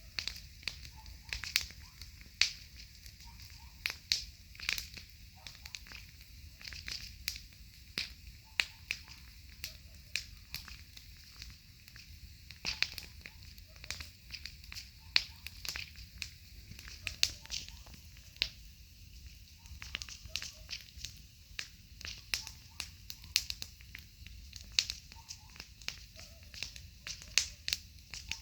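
Wood burning in a campfire, crackling with irregular sharp pops and snaps over a faint low hiss.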